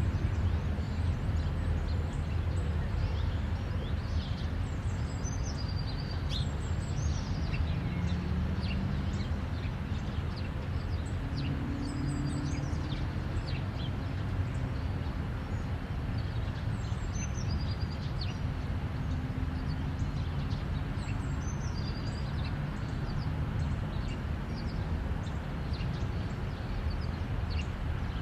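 Steady rumble of highway traffic, with faint engine tones drifting in and out. Small birds chirp over it in short high calls at irregular intervals.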